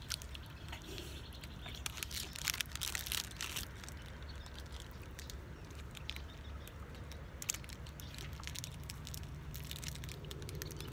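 Crinkly snack wrapper rustling in short bursts, at the start, from about two to three and a half seconds in, and around six to seven seconds in, over a steady low rumble.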